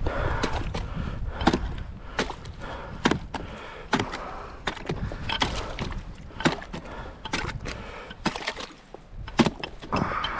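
Steel-tipped ice chipping bar striking and chipping ice, opening a hole over an under-ice beaver set: sharp, irregular chopping strikes about one or two a second. The ice is thin.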